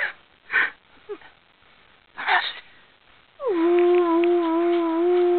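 Wolfdog howling: after two brief breathy sounds, a long howl begins about three and a half seconds in, dropping quickly in pitch and then held steady.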